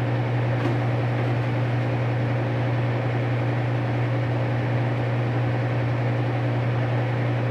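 Tempstar gas furnace running with a steady, unchanging motor hum.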